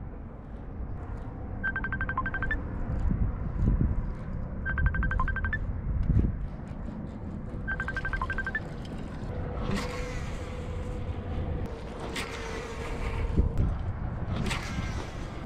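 Wind rumbling on the microphone, gusting harder in the second half. In the first half a short electronic beeping tune plays three times, about three seconds apart.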